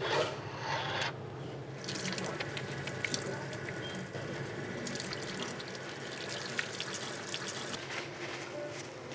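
Water running from a faucet into a stainless steel sink and splashing over hands being washed under it.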